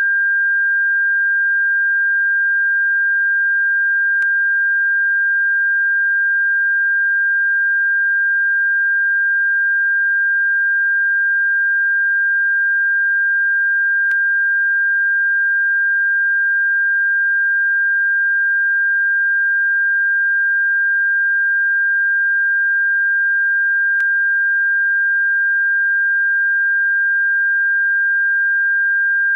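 Steady, unbroken electronic sine tone, a single high pitch around 1.5 kHz played as a bird-repellent frequency, with a faint click about every ten seconds.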